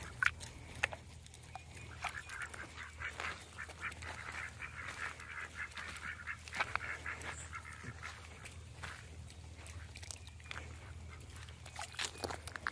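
Ducks quacking faintly in quick runs of short calls, busiest in the middle stretch.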